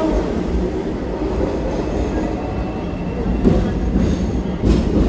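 Hong Kong double-decker tram running along its tracks: a steady low rumble of steel wheels on rail, with a clack about three and a half seconds in and another near the end.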